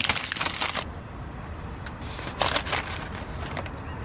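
Fast-food paper wrapper crinkling as it is handled and opened. The crinkling stops within the first second, and there is another brief rustle about two and a half seconds in.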